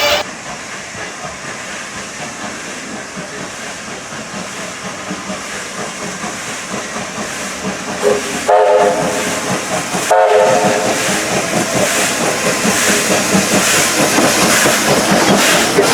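A train approaching and passing, its running noise growing steadily louder, with two blasts of the train's horn about halfway through, then loud hissing rail noise as it goes by.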